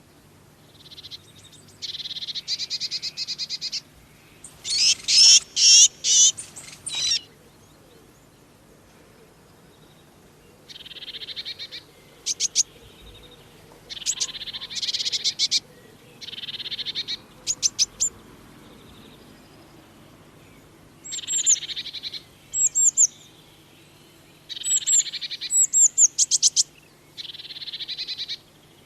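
Blue tits calling in repeated bouts of rapid, high chirps, each bout a second or two long with short pauses between.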